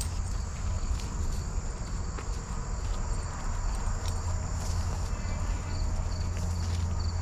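Insects chirring steadily in a high pitch, with a run of short, rapid chirps about two-thirds of the way in, over a low steady rumble. A few soft footsteps are heard through it.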